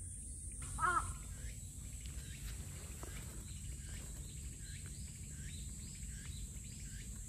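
Outdoor ambience: a steady high insect drone, with a bird repeating a short hooked chirp about twice a second. A brief louder pitched call comes about a second in.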